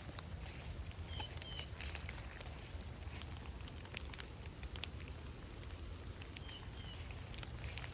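Scattered light ticks and crackles of walking on a wet forest trail over a low steady rumble. A small bird gives a pair of short high chirps twice, about a second in and again later.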